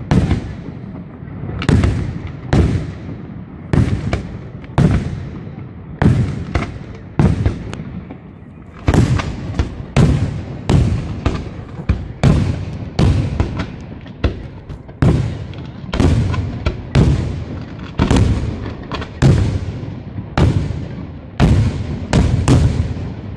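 Aerial firework shells bursting in a barrage. Sharp bangs come about once a second, quickening to about two a second from roughly nine seconds in, each followed by a rolling echo.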